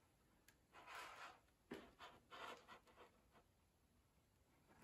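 Near silence, with a few faint brief rustles and brushes of handling about one to two and a half seconds in.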